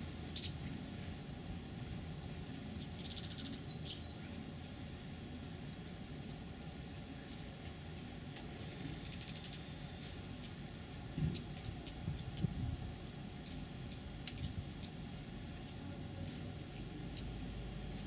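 Oregon dark-eyed juncos giving scattered thin, very high call notes, with three quick twittering runs of rapid high notes: about six seconds in, about eight and a half seconds in, and near the end. A low background rumble runs underneath.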